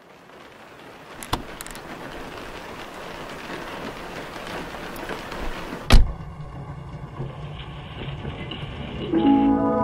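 Sound-effect intro between lo-fi tracks: a rain-like hiss fades in, with a sharp click a little over a second in and a heavy thump about six seconds in, followed by a low steady hum. Lo-fi keys come in near the end.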